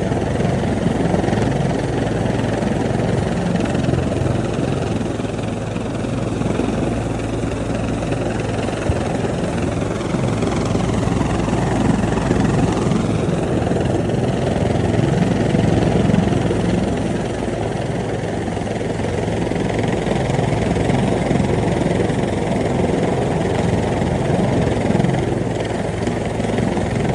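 Rescue helicopter's rotor and engine running steadily, the pitch of its whine dipping and rising again about halfway through.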